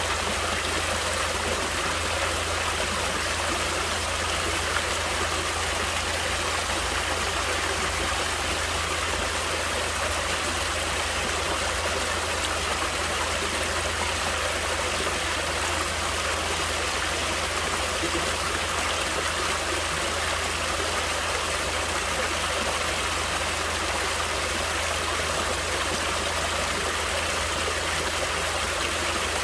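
Natural running water flowing steadily, an even, unbroken rush with no change throughout.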